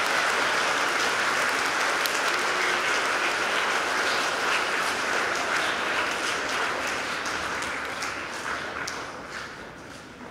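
Audience applauding, steady at first and dying away over the last few seconds.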